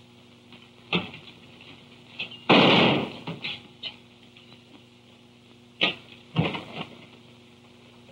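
A single knock, then a door slams about two and a half seconds in. A few sharp thuds and knocks follow past the middle, as of a scuffle against a desk and furniture, over the steady hum of an old film soundtrack.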